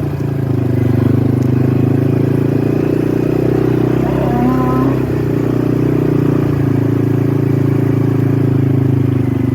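Quad bike engine running steadily at low speed. A short wavering call cuts in briefly about four seconds in.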